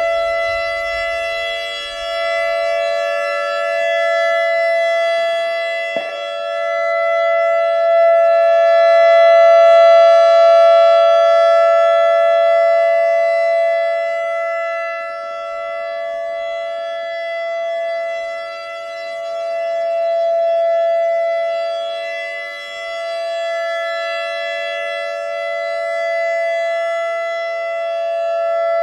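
ACA Alertronic AR-1600 electronic warning siren sounding its alert signal: one steady, unbroken tone whose loudness swells and fades slowly, about every ten seconds. A brief click about six seconds in.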